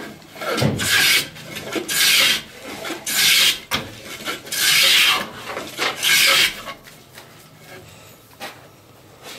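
Compass plane shaving the curved inside edge of a mahogany seat slat: five strokes of the blade cutting wood, each lasting about a second, taking off a high spot to fair the curve. A single light knock near the end.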